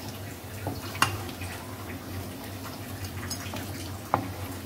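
Hot oil sizzling faintly in a wok as a wooden spatula scoops out fried anchovies, with a sharp tap of the spatula on the pan about a second in and another near the end, over a low steady hum.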